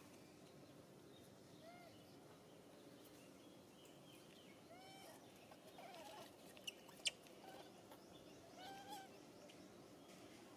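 Faint, short squeaky calls of an infant long-tailed macaque, each rising and falling, a few seconds apart over a low background hiss. Two sharp clicks sound about seven seconds in.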